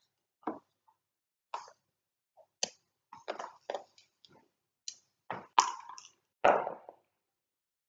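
Backgammon checkers being picked up and set down on the board as a move is played: a string of short, irregular clicks and clacks, the loudest two near the end.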